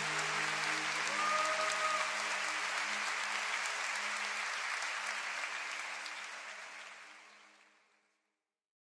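A crowd applauding, with a brief cheer about a second and a half in, the whole thing fading out to silence near the end.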